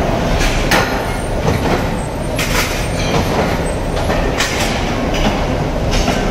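Mechanical forging presses running with a steady heavy rumble, and the ram strikes hot steel in the dies with several sharp metallic clanks at uneven intervals.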